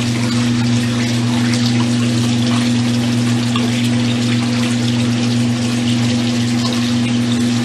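Old Brastemp Luxo washing machine running with a steady low electric hum from its motor or pump, under the sound of water rushing through it.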